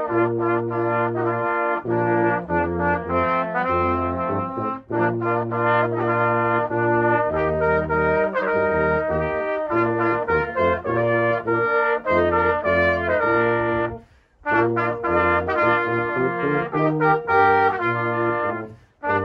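Brass band playing slow, sustained chords over a low bass line, pausing briefly about fourteen seconds in and again just before the end.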